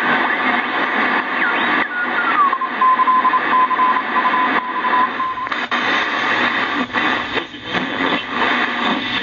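Shortwave static hissing from the KENTEC BCL-1 receiver's speaker as its main dial is tuned. About two seconds in, a whistle slides down in pitch and then holds one steady tone until about halfway through. After that the hiss comes and goes in fluttering bursts.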